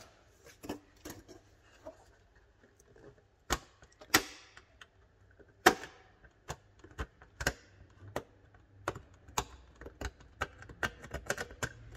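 A small pointed metal tool picking and scraping at an LED strip board, cleaning the spot where a failed LED was broken off so it can be bridged with solder. Irregular clicks and scratches, with a few sharper ticks.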